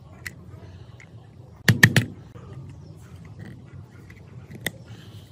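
Screwdriver tip worked against the rusted set-screw collar on an overlock sewing machine's shaft, giving sharp metal-on-metal clicks. There are three in quick succession about two seconds in and one more near the end.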